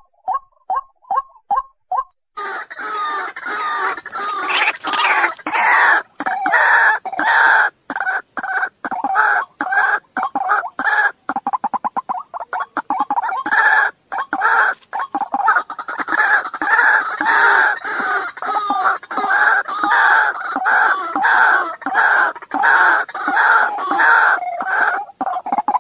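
White-breasted waterhen calls: first a few quick short notes, then from about two seconds in a loud, harsh, rapidly repeated croaking, about two calls a second, that goes on without a break. This is a waterhen calling recording of the kind played to lure the birds into traps.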